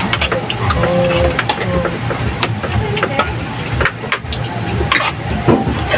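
Spoons and hands clinking now and then against ceramic plates and bowls during a meal, over a steady low engine rumble. A voice is heard briefly about a second in.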